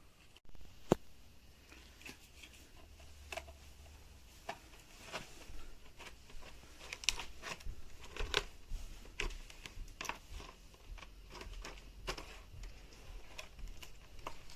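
Irregular clicks and taps of hands and a small tool working on an HP 255 G5 laptop's plastic case and parts during disassembly, with one sharper click about a second in.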